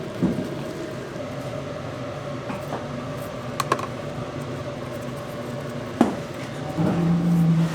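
Kitchen noise: a steady hum with a few sharp clicks and knocks of utensils or containers, and a louder low drone starting near the end.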